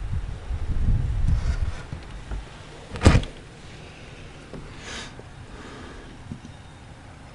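Blizzard wind buffeting the microphone as a low rumble for the first two seconds, then a single sharp knock about three seconds in, followed by a few short, soft hissing scrapes.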